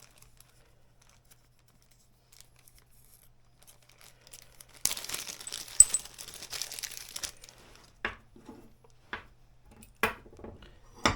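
Plastic packaging crinkling for about two seconds, then a handful of short, sharp clicks as small parts are handled and set down.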